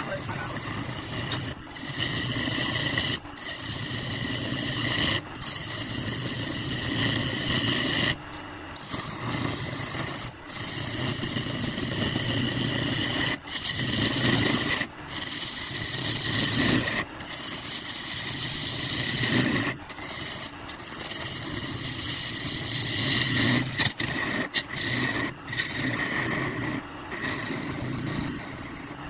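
Wood lathe with a turning tool scraping and cutting the spinning wood. It goes in repeated passes broken by short gaps every two to three seconds, over a steady motor hum.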